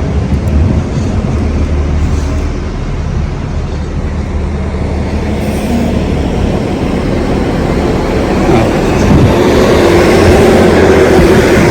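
Street traffic: a steady low engine rumble, then a vehicle passing close, getting louder and loudest near the end.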